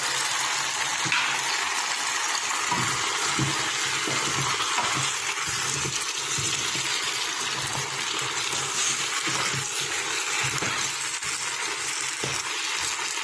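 Chunks of potato, carrot, zucchini and bell pepper tipped into an electric pressure cooker's pot and pushed about with a utensil, giving scattered soft knocks against the pot. A steady hiss runs underneath throughout.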